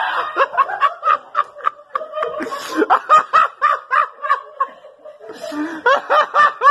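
A person laughing hard in a run of short, high-pitched 'ha' bursts, about three to four a second, with a brief pause about five seconds in before the laughter picks up again.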